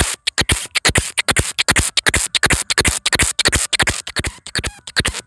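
A man imitating with his mouth a single-cylinder tractor engine chugging: a fast, slightly uneven run of sharp puffs, about five a second, as a tractor sounds when labouring stuck in the ground.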